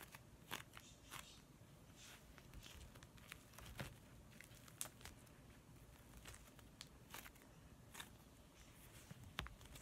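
Purple slime being stretched, folded and squeezed between the fingers, giving faint, scattered little pops and clicks.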